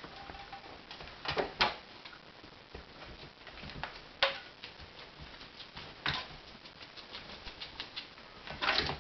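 Kittens playing with a catnip mouse on a string: irregular light taps and scrabbling of paws and claws, broken by about five sharper knocks.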